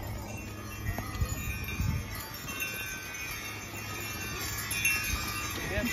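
Two-horse team pulling a wagon past on a packed-snow street: bells on the team ring and jingle, over scattered thuds of hooves and wheels.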